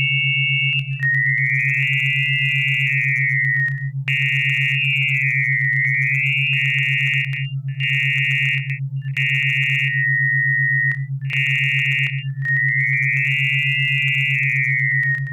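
Synthetic hidden-word audio: a steady, fast-pulsing low hum under a band of high electronic tones that break off briefly several times. The high tones are shaped so that their spectrogram spells the word FAMILIA, a word hidden in sound for a listener to perceive.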